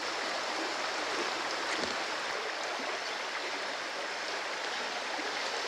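Steady, even hiss of outdoor jungle ambience, holding at one level without a clear rhythm or tone.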